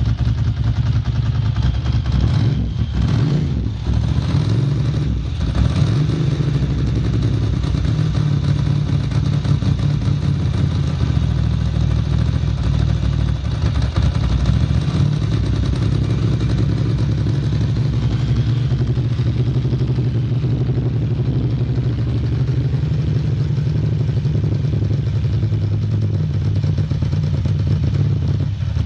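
Ducati Monster M900's air-cooled L-twin engine running at a steady idle, which the seller describes as stable and free of abnormal noises.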